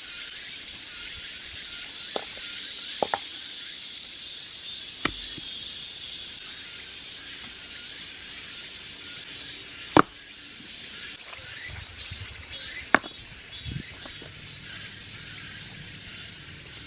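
A steady high hiss of outdoor background noise, broken by a few sharp knocks and clicks, the loudest two near the middle and about three-quarters of the way through.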